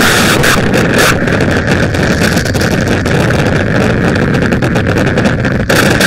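Loud, dense, harsh noise: a rumbling low end under rapid crackling, its texture shifting at the start and again near the end.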